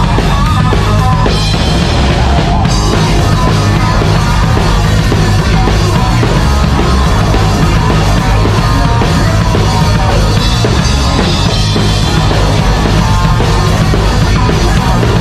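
Heavy metal band playing live, with the drum kit heard up close: kick drum, snare and cymbals over electric guitar and bass.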